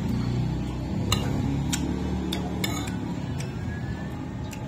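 Spoon and fork clicking against a plate about six times at irregular intervals during a meal, over a steady low background rumble.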